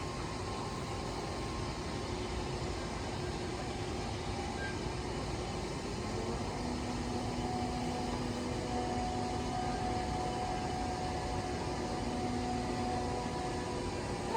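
Industrial 3-axis CNC woodworking router running: a steady machine noise, with faint whining motor tones that come in and shift from about six seconds in.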